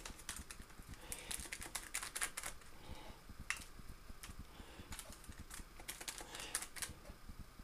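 Faint, irregular crinkles and clicks of baking paper and a foil tray as fingers press a biscuit-crumb base down into it.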